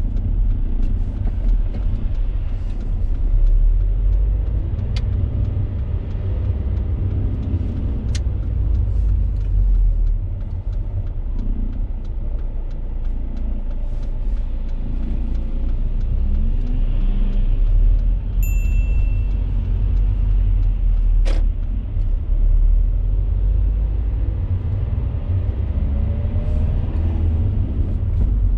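Car cabin noise while driving: a steady low engine and road rumble. A few sharp clicks come through, and there is a short high beep about two-thirds of the way through.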